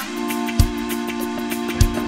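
Live band playing a reggae groove without vocals: a held chord rings through, over a drum kit with two kick-drum beats and steady cymbal ticks.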